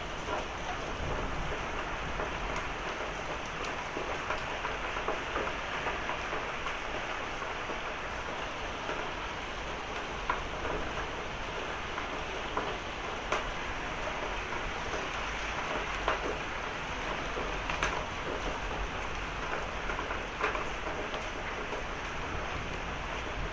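Heavy rain falling steadily in a thunderstorm, with a few sharp isolated ticks of hailstones striking hard surfaces.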